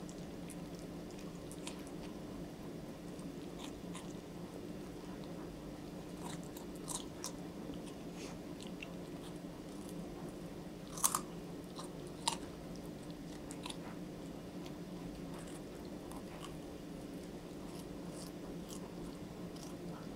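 Wolf pup chewing and gnawing a raw carrot, with scattered sharp crunches; the two loudest come about halfway through. A steady low hum runs underneath.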